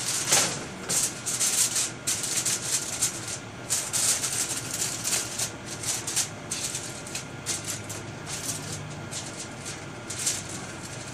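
Aluminium foil crinkling and crackling as hands press and crimp it around the rim of a cooking pot, in quick irregular bursts that thin out near the end.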